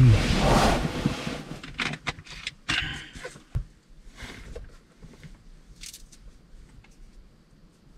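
Handling noises in a cramped truck-bed shell: a loud rustle and clatter in the first second, a few sharp knocks and scrapes over the next two seconds, then faint soft tearing as an orange is peeled.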